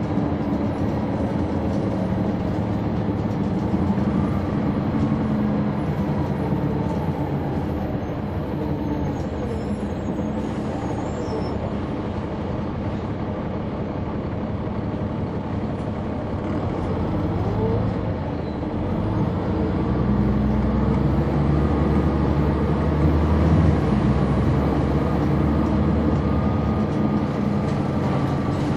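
Caterpillar C-9 ACERT diesel engine of a 2004 Neoplan AN459 articulated transit bus, heard on board while the bus is driving. The engine note is steady, eases off somewhat in the middle, then grows louder past the middle.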